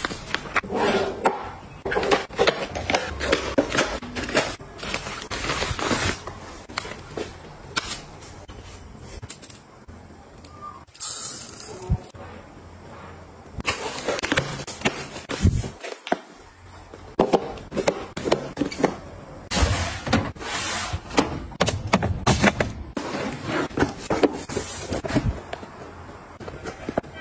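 Hands unpacking parcels: plastic packaging crinkling, packing tape being peeled off a cardboard box, and cardboard and plastic containers tapping and scraping, heard as many short, irregular crackles and knocks.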